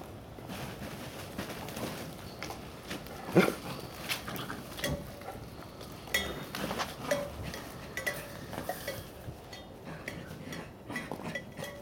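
Bernese Mountain Dog puppies at play: scattered knocks and metallic clinks from hanging tin-can toys, the sharpest about three and a half seconds in, mixed with short puppy whines and grunts.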